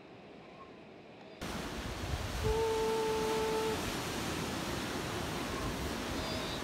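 Sea surf and wind noise on an outdoor microphone, cutting in suddenly after a faint hiss about a second and a half in. About a second later a steady, flat-pitched tone is held for a little over a second over the noise.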